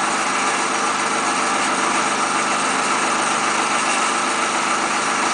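Steady machine noise, a continuous even drone with no breaks or changes.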